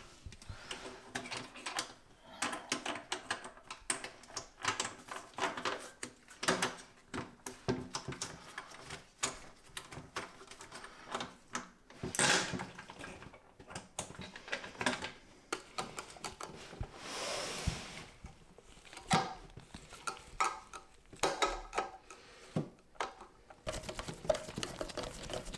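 Irregular clicks, taps and rattles of plastic toilet-seat hinge brackets and their bolts being fitted against a porcelain toilet bowl, with a brief scrape about two-thirds of the way through. Near the end a screwdriver turns a hinge bolt.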